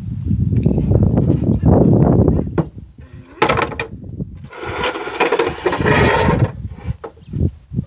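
Wooden ramp being shifted and turned around on a concrete driveway: rough rumbling and knocking, then a harsh scrape from about five to six and a half seconds in.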